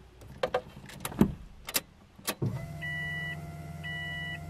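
A few sharp clicks of the key and ignition switch. About halfway in, a steady electric hum starts: the newly fitted Deatschwerks DW300 in-tank fuel pump priming with the ignition on. A dashboard chime beeps about once a second over it.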